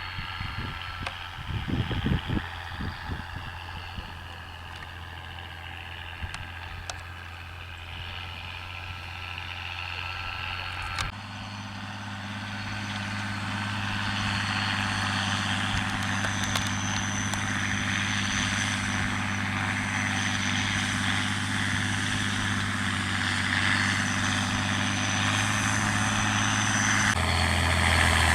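Massey Ferguson 6499 tractor's six-cylinder diesel engine working steadily under load as it pulls disc cultivators through stubble. There are a few knocks about two seconds in, the sound jumps louder about eleven seconds in, and it then grows slowly louder as the tractor draws nearer.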